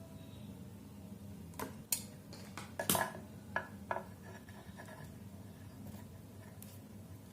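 A run of light clicks and metallic clinks from small hard parts and tools being handled during wiring work, a handful of them clustered between about one and a half and four seconds in, some ringing briefly.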